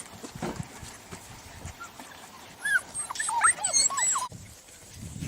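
Dogs whining and yipping, several short cries rising and falling in pitch and overlapping each other, from about halfway in; they cut off suddenly near the end.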